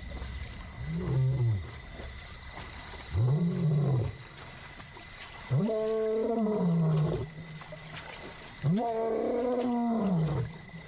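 Young male lion roaring in a series of four calls, each longer and louder than the last. It is a contact call to find a lost companion.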